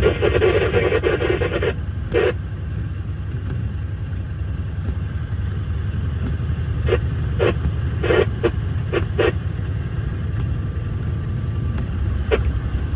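Steady low rumble of a logging truck, engine and road noise heard inside the cab. A dense burst of noise fills the first second and a half, and short clicks or rattles break through a handful of times, mostly in the middle.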